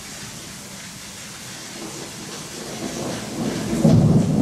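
Steady rain hiss, then a rumble of thunder building from about three seconds in and loud near the end.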